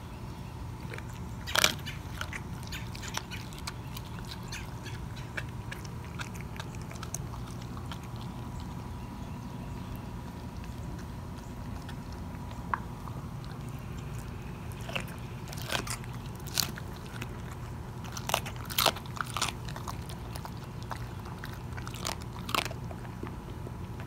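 Dog chewing a raw chicken leg quarter, bone and all: wet gnawing with irregular sharp crunches, the loudest about a second and a half in and a cluster of them in the second half.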